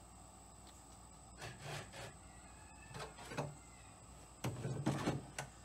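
Bricks being shifted and set down on a table: three bouts of scraping and clunking, the loudest about four and a half seconds in.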